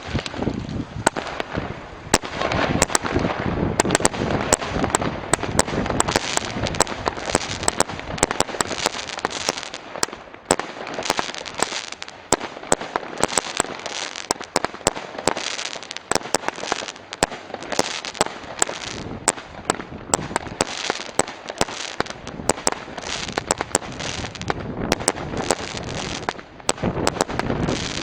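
Consumer firework cake firing in a continuous barrage: rapid sharp shots and bursts, dozens of them, over constant crackling, with no break.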